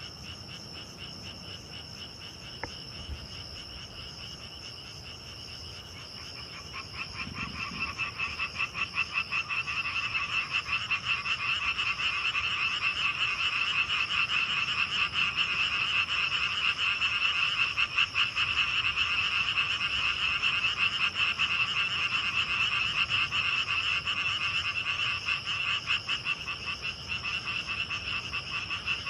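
Chorus of frogs with grass insects: a steady high insect trill underneath, and the frogs' rapid pulsing calls swelling much louder about seven seconds in and carrying on.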